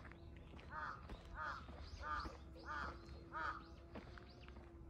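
A crow cawing five times in a row, evenly spaced, over a faint low rumble.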